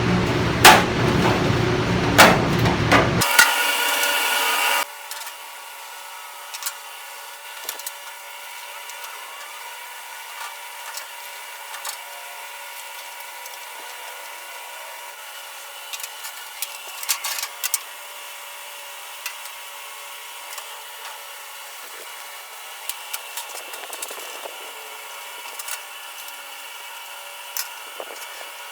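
Hand tools clicking and knocking now and then against the metal tool chest's base as it is taken apart. A loud steady fan noise runs at first and drops away sharply about five seconds in, leaving a quieter hum.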